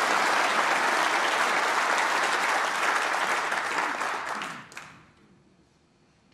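Snooker audience applauding a successful shot. The clapping dies away quickly about four and a half seconds in.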